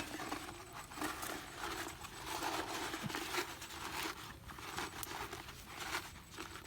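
Irregular crinkling and rustling of material being handled, with scattered light crackles.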